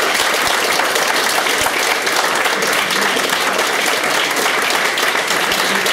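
Sustained applause: many people clapping at once, dense and steady throughout.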